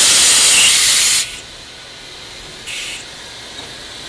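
Steam hissing loudly in a narrow-gauge steam locomotive's cab. The hiss cuts off suddenly about a second in, and a short second burst of hiss follows near three seconds.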